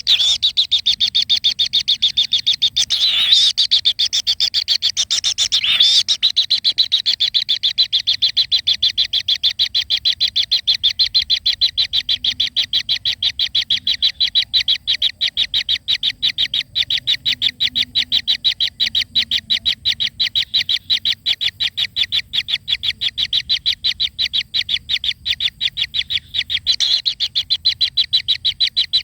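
A bird calling in a fast, even series of short high notes, about four a second, without a break. Two brief rustling knocks cut across it about three and six seconds in.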